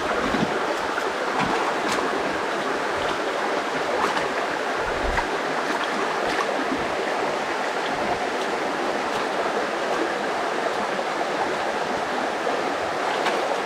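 Creek water running steadily in an even rush, with a few faint knocks.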